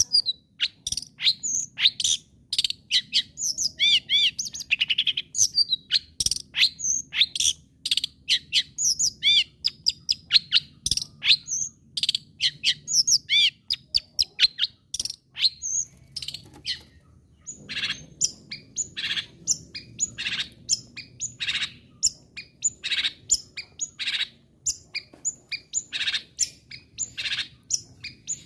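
Long-tailed shrike (cendet) singing hard: a fast, varied stream of short, sharp chirps and chattering notes, broken by a brief pause about two-thirds of the way through.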